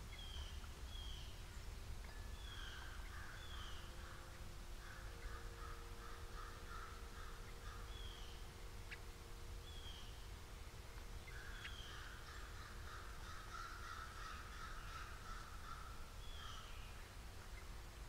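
Birds calling from the surrounding woods: short descending whistled notes repeated in pairs, with stretches of rapid, harsh calling a few seconds long, over a faint steady hum.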